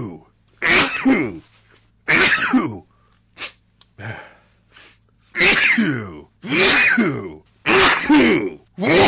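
A man's rapid sneezing fit from a tree-pollen allergy: about six loud sneezes, each about a second apart. There is a pause in the middle broken only by a couple of fainter, short sounds.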